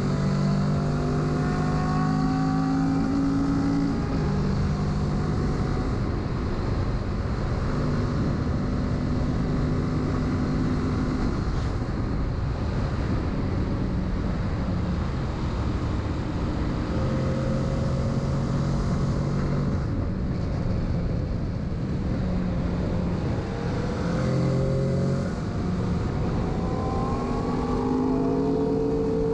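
Kawasaki Z650's parallel-twin engine running at road speed under a steady rush of wind. The engine note holds steady, fades back and returns several times, and climbs as the bike accelerates near the end.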